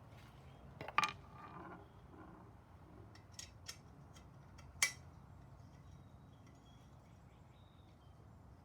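A handful of sharp metallic clicks and clinks from an Allen key and a bicycle Allen bolt being handled, the loudest about a second in and another near five seconds in.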